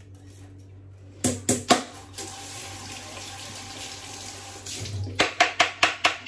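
Kitchen tap running for about two and a half seconds, with three sharp knocks just before it and a quick run of knocks near the end.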